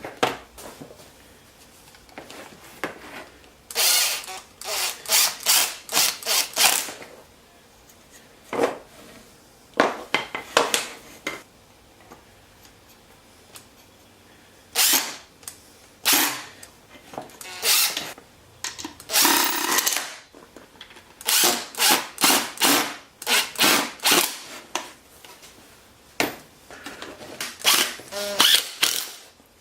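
Power drill running in many short trigger bursts, grouped, with quiet pauses between.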